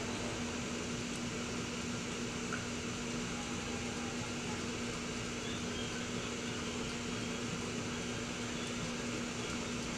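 Steady room noise: an even hiss with a constant low hum, like a fan or air-conditioning unit running, and no distinct events.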